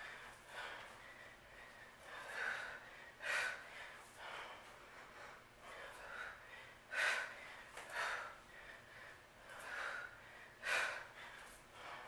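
A woman's heavy breathing under exertion: sharp, hissy breaths every second or so, with a louder forceful exhale about every three to four seconds.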